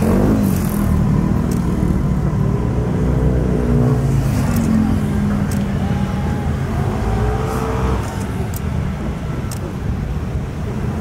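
Distant fireworks going off in rapid succession: a continuous low rumble of booms, with scattered sharp crackles and faint voices of people nearby.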